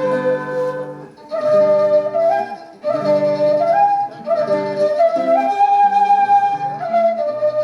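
A quena (Andean bamboo flute) plays a slow melody over guitar accompaniment. The phrases are broken by short breaths about one and three seconds in, and the notes slide upward from one pitch to the next.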